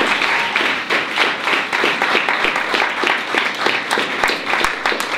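Audience applauding: many hands clapping at once in a dense, continuous patter.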